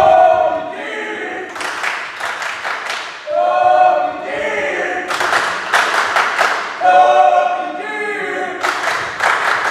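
Spectators chanting in chorus: a drawn-out shouted call repeated about every three seconds, with bursts of clapping and cheering between the calls.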